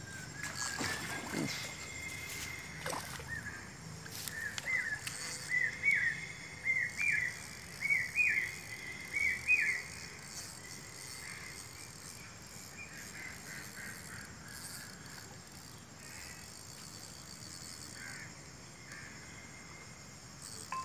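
A bird calling a run of short, sharp repeated notes, about two a second, that climb slightly in pitch over about six seconds. A quiet outdoor background runs under it.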